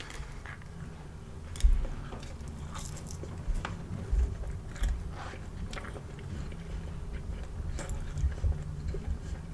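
Close-miked biting and chewing of Wendy's french fries: irregular crunches and wet mouth sounds, with the loudest bite about one and a half seconds in.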